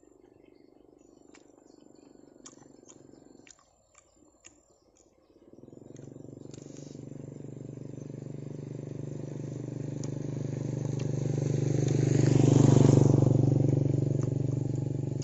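A motor engine's steady hum approaching and passing, swelling for several seconds to its loudest near the end and then starting to fade. A few faint clicks come before it.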